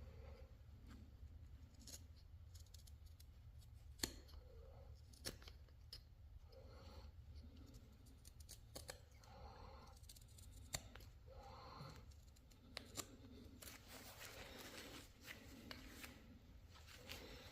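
Faint strokes of a hand chisel paring and shaving maple, repeated about once a second, with a few sharp clicks of the blade against the wood.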